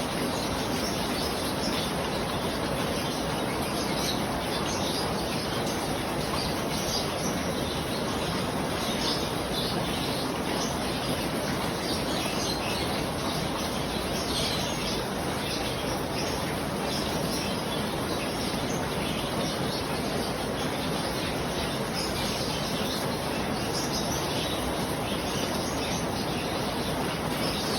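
Steady rain falling, with birds chirping on and off throughout.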